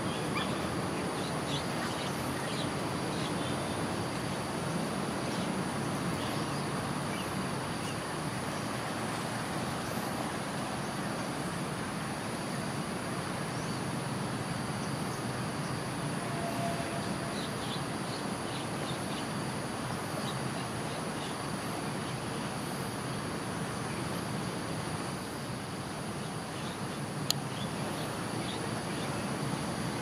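Steady outdoor background noise with short bird chirps here and there and a faint steady high tone. A single sharp click comes near the end.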